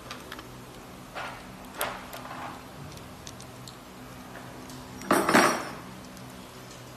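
Small metal parts clinking and rattling in the hands as a headset fitting and an Allen key are handled: a few light clinks, then a louder burst of rattling about five seconds in.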